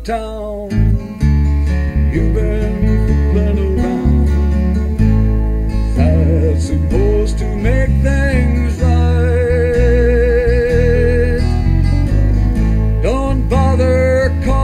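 Country song: acoustic guitar over a steady bass, with a melody line that bends between notes and holds a long wavering note about ten seconds in.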